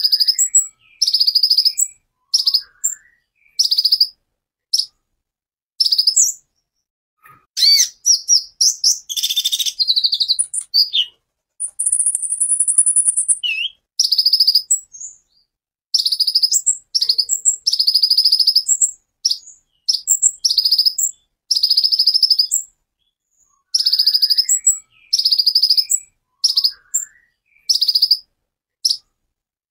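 Van Hasselt's sunbird (kolibri ninja) singing: short, very high, sharp phrases repeated every second or two with brief pauses, a busier run of notes about eight seconds in, and a high trill a few seconds later.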